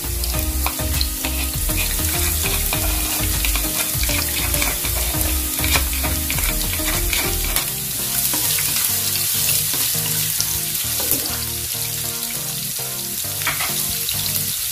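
Sliced onion and chopped garlic frying in hot oil in a non-stick pan: a steady sizzle with small crackles throughout.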